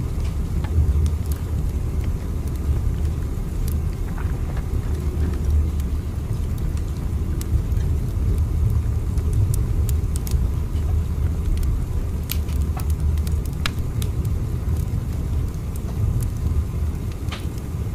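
Steady low rumble of a train ride ambience, with faint scattered clicks throughout.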